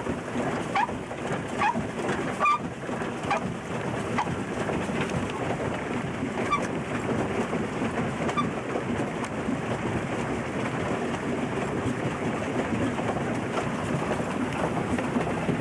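Pedal boat being pedalled across the water, its paddle wheel churning a steady splashing rush, with a few short high squeaks, mostly in the first three seconds.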